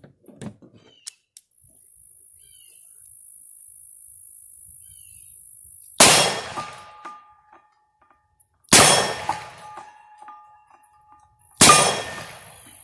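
Three shots from a Smith & Wesson .38 Special revolver, about three seconds apart, each followed by a brief ringing tone. A steady high insect drone fills the quiet between the shots.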